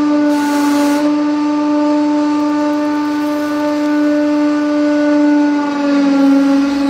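Hydraulic press droning steadily as its ram presses down on a cup of granular material. It is a loud, even hum with a short hiss in the first second, and its pitch dips slightly near the end.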